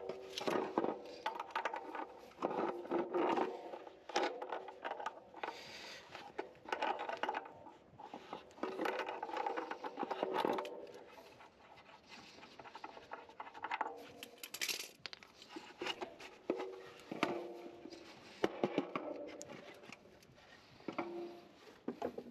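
Hand work on heater parts: irregular scraping, rubbing and small knocks, with brief ringing from the parts being handled.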